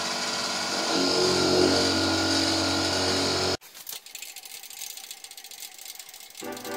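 Metal lathe running, a carbide insert cutting a steel part: steady machine tones over a cutting hiss. It cuts off abruptly about three and a half seconds in, leaving faint ticking, and music starts near the end.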